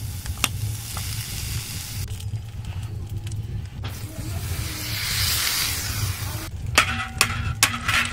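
Diced potatoes and onions sizzling in a pan over a wood fire. About four seconds in, liquid is poured onto them and the sizzle grows louder and hissier; a few sharp clicks follow near the end.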